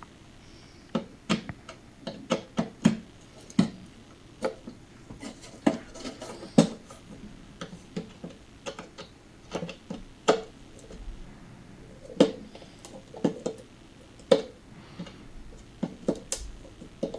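Irregular sharp clicks, clinks and light knocks, about one or two a second, as the old guitar's metal hardware is taken off and handled; some knocks ring briefly through the hollow body.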